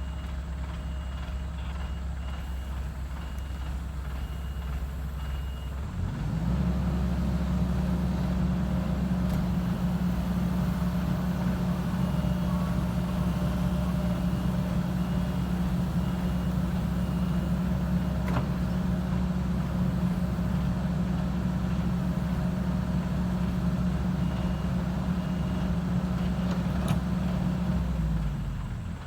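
Excavator's diesel engine running, then revving up about six seconds in and holding the higher speed until just before the end, when it drops back. A faint beeping alarm repeats on and off.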